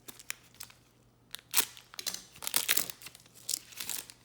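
A trading card pack wrapper being torn open and crinkled by hand: a few faint clicks at first, then a run of irregular crackles from about a second in.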